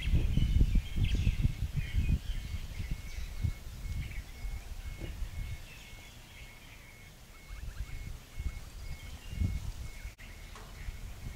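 Outdoor ambience: birds chirping over uneven low rumbling that swells and fades, heaviest in the first two seconds and again near the end.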